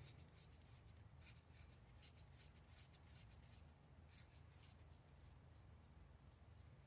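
Near silence: a faint steady room hum with a few faint light ticks, one a little clearer about five seconds in.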